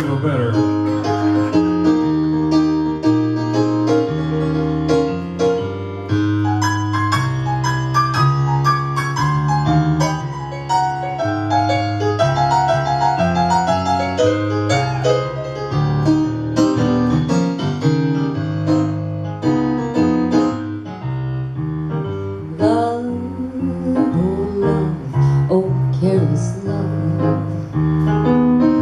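Piano instrumental break on a Yamaha S90 XS stage keyboard in a slow blues ballad: bass notes changing about once a second under chords and quick right-hand runs. Near the end a woman's singing voice comes back in over the piano.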